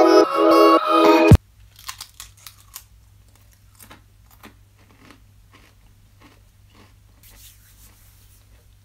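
Background music that cuts off abruptly about a second and a half in, then a person biting and chewing a Pringles crisp: a quick run of crunches that fades into softer chewing.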